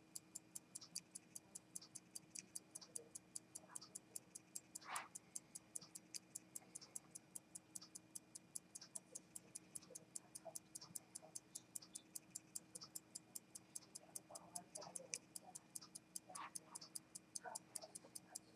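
Longines A-9 WWII pilot's pocket watch ticking steadily, about five ticks a second, with a faint hum under it.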